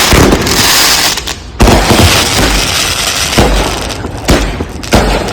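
Consumer aerial firework cakes going off: a run of booming shells bursting every second or so, over crackling and hiss from the effects.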